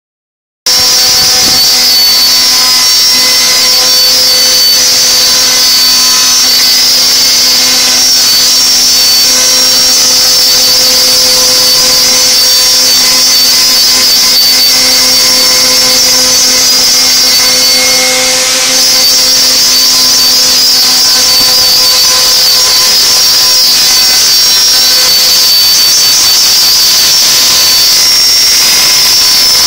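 CNC router spindle running steadily while machining, a high whine over a loud hiss that starts about half a second in, with a brief dip about 18 seconds in.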